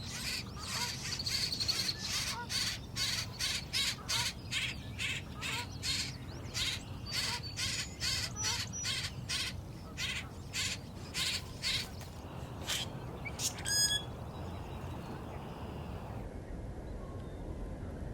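Common grackle nestlings begging with short, sharp chirps, about two a second, which stop about twelve seconds in. Some two seconds later comes a single harsher, ringing call.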